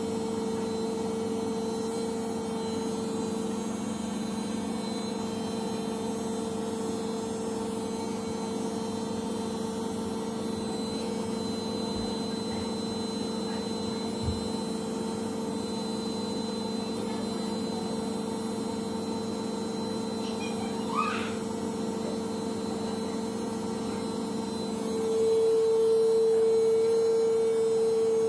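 Samsung Ecobubble 8 kg front-loading washing machine (WW80J5355MW) running a spin-only cycle: a steady motor hum with a faint high whine, holding one pitch. About 25 s in the hum gets louder and shifts to a higher tone.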